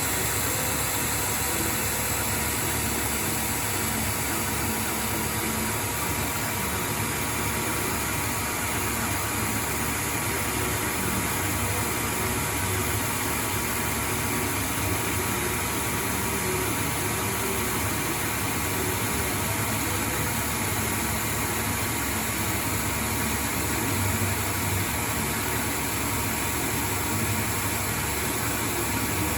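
ProtoTrak CNC lathe rough-turning a 4140 heat-treated steel shaft: a steady, even hum and hiss of the running spindle and the cut.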